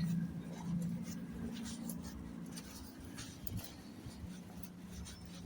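Street ambience on foot: a low steady hum that drops out for a second or two in the middle, with scattered light clicks and rustling.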